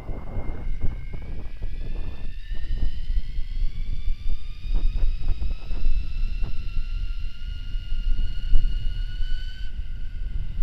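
Electric mountain bike motor whining, its pitch rising steadily as the bike speeds up, then easing off near the end. Heavy wind rumble on the microphone runs underneath.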